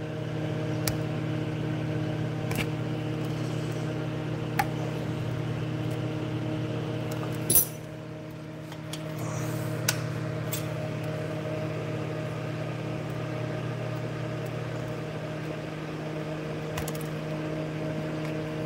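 Scattered small clicks and clinks from hands pulling apart and handling the parts of a desk lamp, the sharpest about seven and a half seconds in, over a steady low hum.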